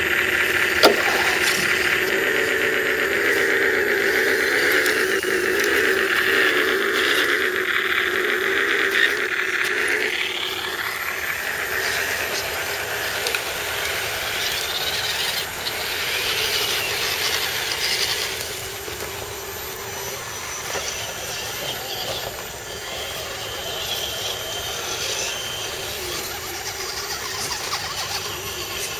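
Electric motors and geartrains of scale RC crawler trucks whining as they crawl over a rough trail. A strong steady whine winds down about ten seconds in, and fainter, shifting whines from the trucks following carry on.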